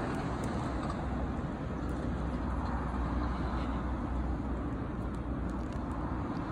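Steady low rumble of road traffic, with a few faint ticks.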